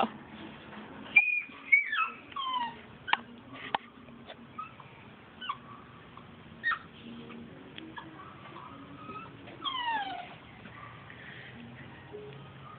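Miniature schnauzer puppy whining: a string of short, high-pitched falling whimpers and yelps. The loudest cries come about a second in, and a longer falling whine comes later on.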